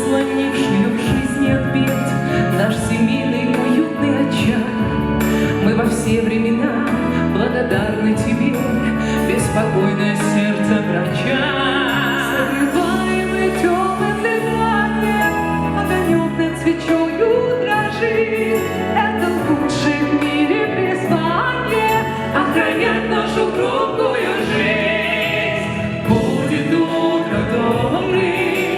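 A song performed by a vocal ensemble over instrumental backing, with singing voices heard throughout.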